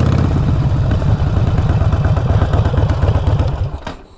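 Harley-Davidson V-twin engine running loud and pulsing, with an exhaust leak at the front cylinder's header where both clamp nuts have come off. The engine is switched off near the end and dies away.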